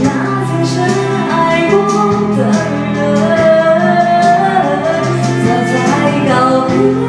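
A woman singing into a handheld microphone over a recorded backing track with a steady beat, holding long notes.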